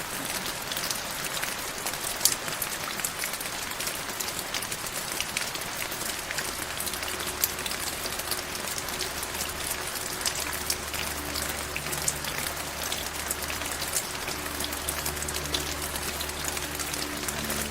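Steady rain, with many sharp individual drops striking a surface over an even hiss. About halfway through, soft low sustained tones fade in underneath.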